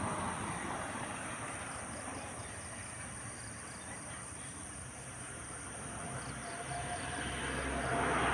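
Night ambience: insects trill steadily and high-pitched over a broad rumble. The rumble eases off, then swells again toward the end as a low hum comes in, like a vehicle drawing near.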